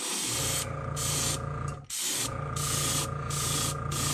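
Airbrush spraying paint in short on-and-off bursts, a hiss over a steady low hum, which stops for a moment about halfway through before spraying again.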